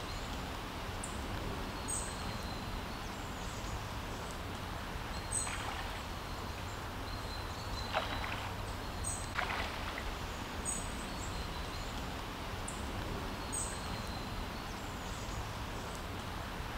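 Outdoor background: a steady low rumble and hiss, with short, thin, high-pitched bird call notes every few seconds.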